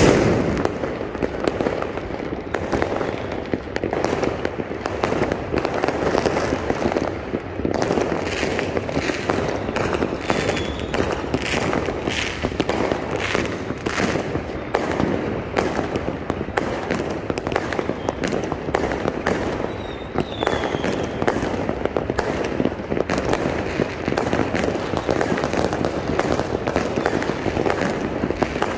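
Dense New Year's Eve fireworks going off continuously: many overlapping bangs and crackles of bursting shells with no pause. A few brief high whistles cut through it.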